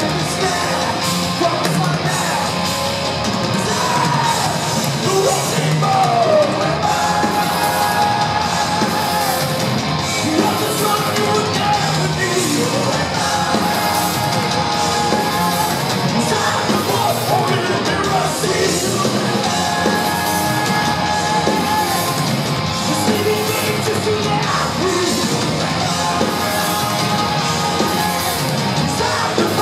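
Heavy metal band playing live, heard from the audience in a large hall: a male singer's held, yelled vocal lines over a full band with steady drums.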